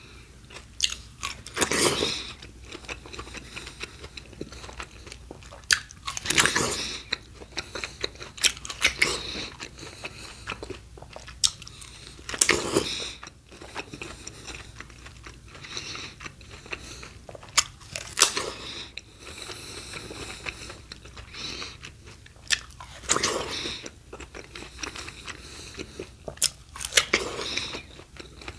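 Close-miked eating: crisp bites and crunchy chewing of raw produce, with a loud crunching bite every five or six seconds and crackling chews in between.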